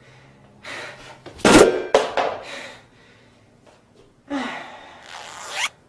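A man's gasps and grunts in short separate bursts, the loudest about a second and a half in.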